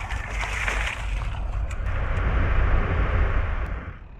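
Wind buffeting the microphone of a trike-mounted camera: a low rumble under a steady hiss, dying away near the end.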